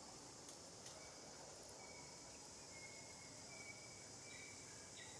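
Near silence with a faint, steady high insect drone and short, thin bird calls that come and go from about a second in.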